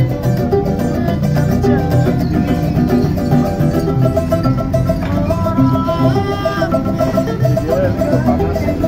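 Kroncong music played live on plucked strings: small ukulele-type cak and cuk strumming a quick, even interlocking pattern over acoustic guitar and low bass notes, with a higher melody line standing out about five seconds in.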